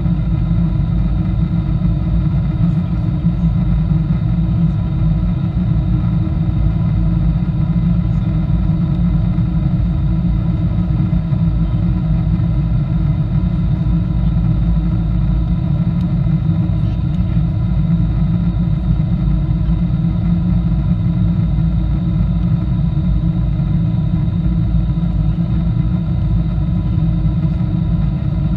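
Steady in-cabin noise of a Boeing 747-8i on approach: a loud, even low rumble of airflow and its GEnx turbofan engines, with a few faint steady tones above it.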